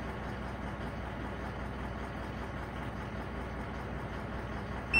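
Steady low mechanical hum, with one short electronic beep near the end from a handheld OBD2 scan tool's key press as it steps to the next trouble code.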